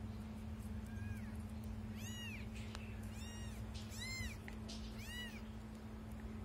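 Kitten meowing: a faint mew about a second in, then four high-pitched meows about a second apart, each rising and then falling in pitch, over a steady low hum.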